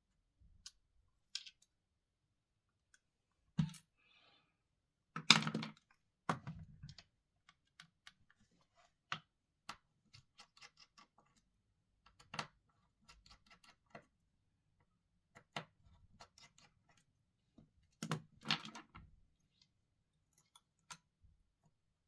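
Irregular small clicks and taps of repair tools on the internal parts of a smartphone being taken apart, likely flex connectors being unclipped. The loudest clusters come about five seconds in and again near eighteen seconds, with quiet gaps between.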